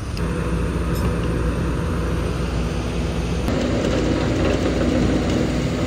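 Flatbed tow truck running with a steady low drone, its tone changing abruptly about three and a half seconds in.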